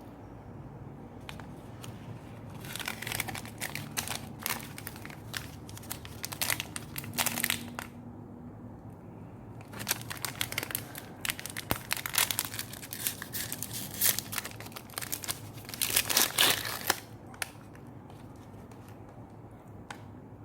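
Close-up crinkling and crunching noises in two long spells of rapid crackles, the second louder toward its end.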